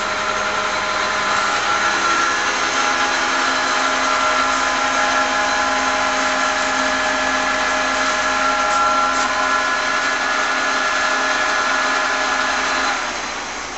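LeBlond 16-inch toolmaker's lathe running under power, its spindle, headstock gears and drive motor making a steady mechanical whine with several held tones over a broad hiss. Near the end the sound falls away as the lathe stops, and a short knock follows.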